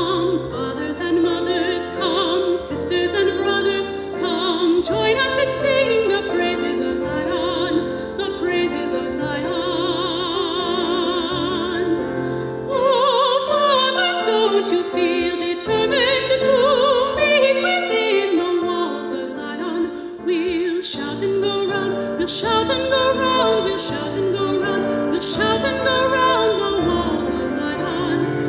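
Mezzo-soprano singing a classical solo with a wide vibrato over sustained keyboard accompaniment.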